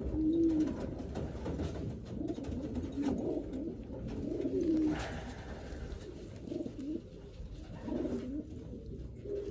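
Racing pigeons cooing, a run of low, warbling coos repeating every second or two.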